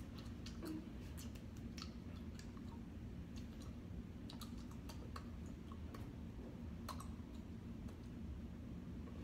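Faint, irregular clicks and taps from two people signing, over a steady low room hum.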